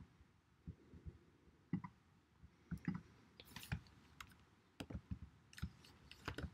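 Faint, scattered clicks and taps of a computer mouse and keyboard as a ladder program is edited, about a dozen short, irregular clicks.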